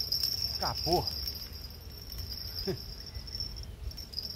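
Steady high-pitched insect chirring that breaks up near the end, over a low rumble, with a couple of short falling voice-like sounds about a second in and again near three seconds in.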